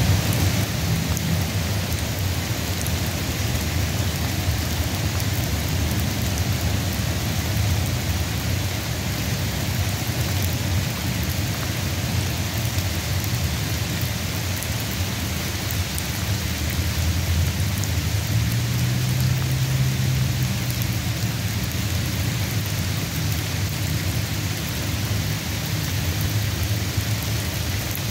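Steady rain falling, an even hiss of many drops, with a low rumble underneath that swells for a few seconds about two-thirds of the way through.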